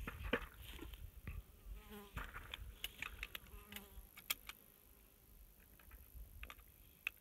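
A fly buzzing close to the microphone in two short passes, about two seconds in and again near four seconds, over a low wind rumble and small scattered clicks.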